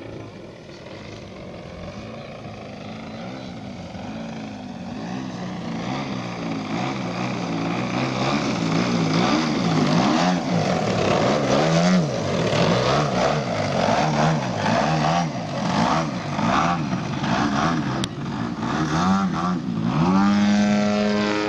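A Hangar 9 Extra 300 model aerobatic plane's DA 120cc twin-cylinder two-stroke petrol engine and propeller, growing louder as the plane comes in low. Its pitch rises and falls again and again with throttle bursts, then holds steady near the end.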